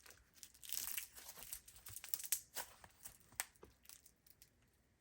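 Stiff, over-activated slime full of foam balls and beads being squeezed and kneaded by hand: a crackling of many small pops and clicks, thickest in the first half and thinning out after.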